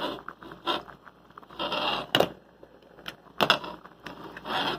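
A glass lid clinking and scraping on the rim of a metal pot as it is set half-on, with two sharp clinks in the middle, over rice and pumpkin boiling in the pot.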